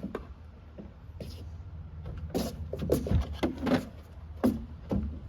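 A string of irregular clicks and knocks from something being handled, coming thicker in the second half.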